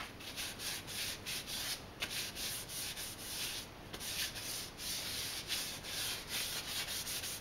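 Kitchen towel rubbed back and forth over a hand-carved wooden spoon, working olive oil into the wood: a quick run of short, hissy rubbing strokes, about three a second.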